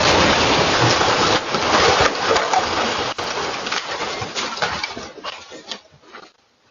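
Loud, dense crackling and hissing right after a blast, full of rapid sharp pops. It thins out and dies away about five to six seconds in.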